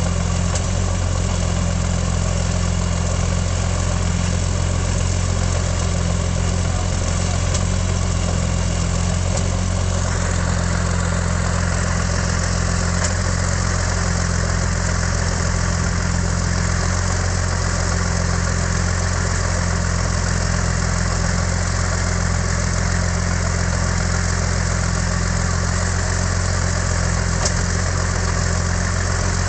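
Rolls-Royce Merlin III V12 aero engine of a Sea Hurricane running steadily at low power on a ground run, with a deep, even drone. Its tone shifts slightly about ten seconds in.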